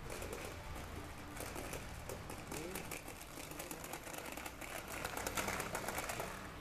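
A child's plastic push toy clattering with a rapid run of clicks as a yellow Labrador drags it over the grass by a cord. The clicking sets in about a second in and dies away shortly before the end.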